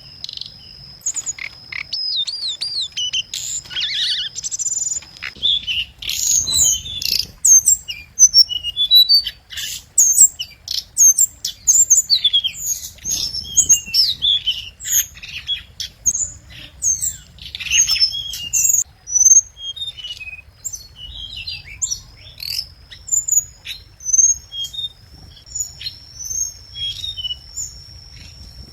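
Hồng hạnh songbird calling and singing: rapid high-pitched chirps and short trills that come thickest in the middle stretch. A thin, steady high tone runs under the calls early on and again near the end.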